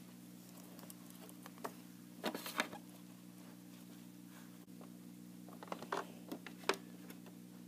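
Faint taps and rustles of small plastic toy figures being hopped by hand across carpet and a plastic playset, a few scattered clicks with the strongest pair about two and a half seconds in and another cluster near the end, over a low steady hum.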